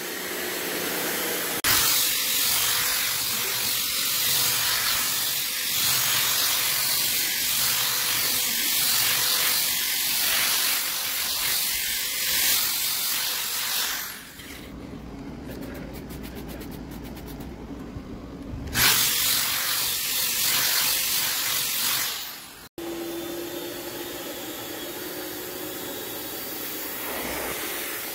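Vacuum suction of a portable carpet extractor through a hand upholstery tool: a loud rush of air and water that dips about every second and a half as the tool is stroked over the fabric. Partway through it drops to a low rumble for a few seconds and then comes back. Near the end it gives way to a quieter steady hiss with a low hum.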